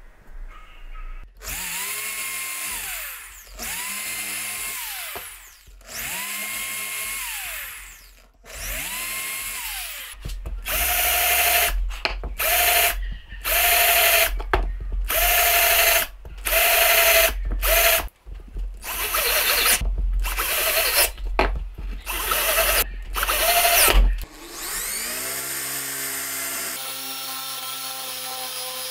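A cordless drill runs in repeated trigger pulls into wood, its whine rising as it spins up and falling as it stops: four longer runs, then a quicker series of short bursts. Near the end a corded electric drill runs steadily for several seconds as it bores a hole into a wooden block.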